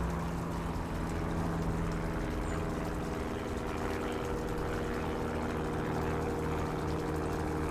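Steady engine hum of nearby road traffic, a constant drone that holds one pitch throughout over a low rumble.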